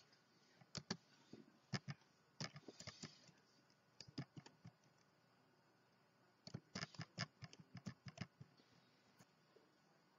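Faint clicking of computer keyboard keys being typed in four short bursts, with pauses between them, then quiet keys near the end.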